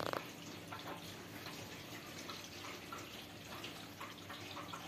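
Faint, steady trickle of running water with scattered drips: hot water from the water heater flowing in through the supply line.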